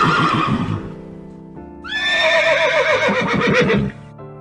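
Horse whinnying: a loud call about two seconds long that starts high and shakes down in rapid falling pulses, after a lower pulsing call in the first second. Steady background music plays underneath.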